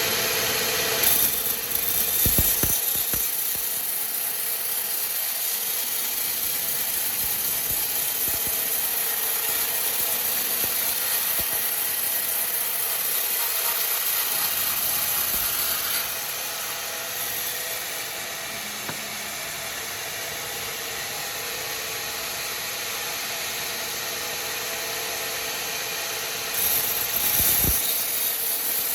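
Sawmill machinery running with a steady high hiss, with a few knocks about two seconds in and again near the end; it drops a little in loudness about halfway through.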